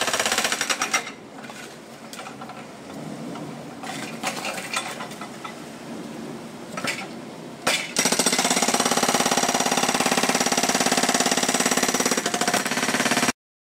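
A hydraulic rock breaker on a mini excavator is hammering concrete with rapid repeated blows. It pounds loudly for about a second, goes quieter with scattered knocks, then runs loud and continuous from about eight seconds in. It cuts off suddenly near the end.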